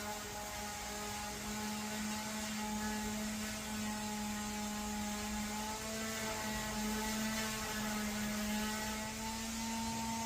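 Steady machine hum with several overlapping tones, some shifting slightly in pitch about halfway through and again near the end.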